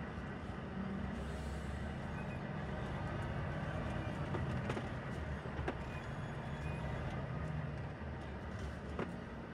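Volvo FH timber truck's diesel engine running steadily at low revs, with a few sharp knocks.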